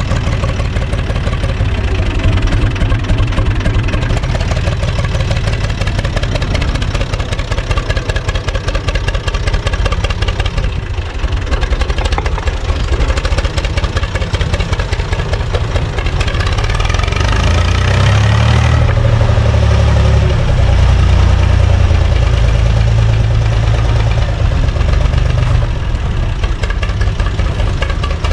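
UTB 445 tractor's diesel engine running at idle with a steady, rapid beat of firing pulses. For several seconds past the middle it runs louder and fuller, then settles back.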